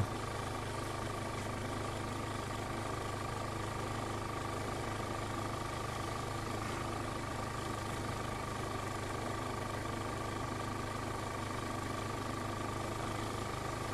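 Vehicle engine idling steadily, a constant low hum with a faint steady high whine over it.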